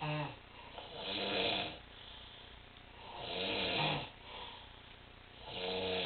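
A person snoring: loud, regular snores about every two to two and a half seconds, each with a low buzzing tone and a breathy hiss, with quieter breathing in between.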